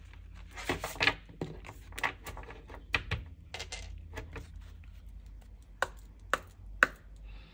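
Oracle cards being shuffled and handled over a wooden table: brief rustling of the cards, with short sharp taps as the deck and cards meet the wood, three clear taps near the end.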